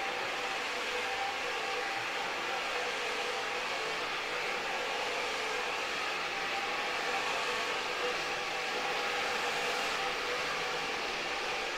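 Walk-behind brush scrubbing machine running steadily as it is pushed over a wet, shampooed rug: an even motor hum with a couple of held tones over a steady hiss.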